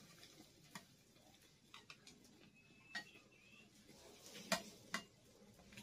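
A metal utensil tapping and scraping a frying pan: several light clicks, the loudest about four and a half seconds in.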